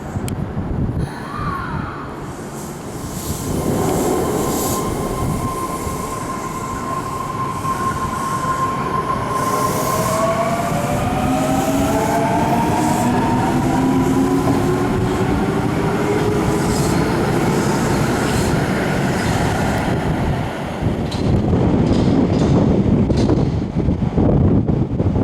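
Osaka Metro 400 series electric train pulling out of the station: its traction motors whine in several tones that climb steadily in pitch as it gathers speed, over the rumble of wheels on the rails.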